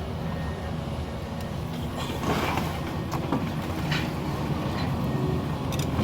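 A heavy diesel demolition machine runs steadily while the house's timber and debris crunch and crack, in several bursts from about two seconds in.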